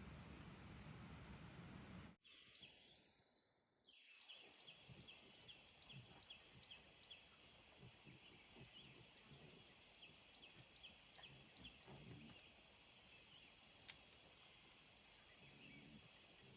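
Insects trilling faintly: a steady high-pitched trill with a second insect chirping about twice a second. The sound cuts out abruptly about two seconds in and returns a moment later.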